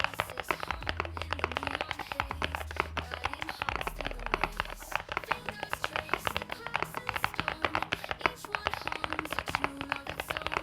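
Fast, continuous typing on a stock Epomaker HE68 Lite mechanical keyboard, with Clear Mag Hall Effect linear switches on a PP plate and double-shot PBT keycaps; many keystrokes a second, with no steady rhythm. Background music with a low bass line plays underneath.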